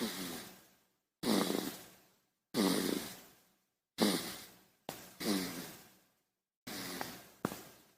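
A baby snoring: about eight short, noisy breaths, each starting suddenly and fading out over about a second, with a low rattling snore under the breath. There is dead silence between the breaths.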